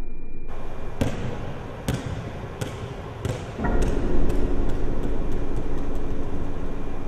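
A basketball bouncing on a hardwood gym floor. The bounces come closer and closer together, from nearly a second apart to several a second.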